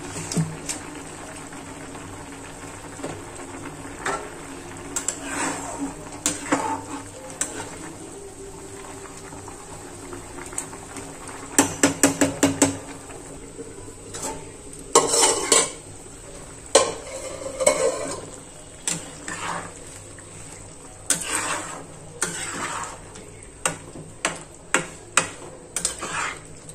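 A spatula stirring and scraping in a kadai of simmering vegetable curry, among clanks of cookware and an aluminium lid. There is a quick run of about six clinks around twelve seconds in, and more scraping strokes near the end.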